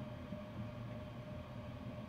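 Steady low hum and faint hiss of room tone, with a faint steady tone held throughout.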